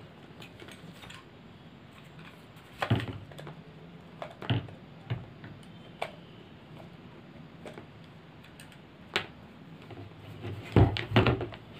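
Scattered plastic clicks and knocks as the green plastic cap of a Bosch hand blender is handled and fitted onto its motor housing, with the loudest cluster of knocks near the end.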